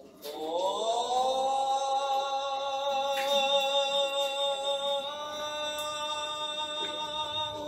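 A single unaccompanied male voice singing one long held note. It slides up in pitch over the first second, holds steady, and shifts slightly about five seconds in.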